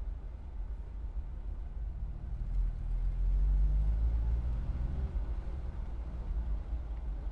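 Car engine with a low rumble, swelling louder with a rising pitch about two and a half seconds in as the car pulls away, then easing back after about five seconds: stop-and-go driving.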